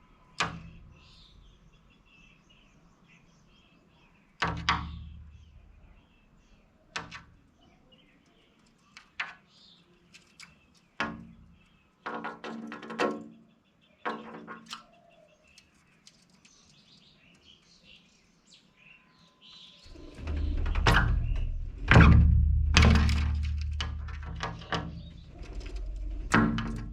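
Faint bird chirps with a few sharp, irregular knocks, then background music with heavy bass and wood-block-like percussion coming in about twenty seconds in.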